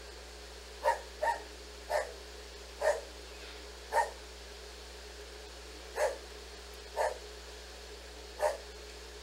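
A dog barking: short single barks, eight in all, about one a second, with a pause of two seconds around the middle.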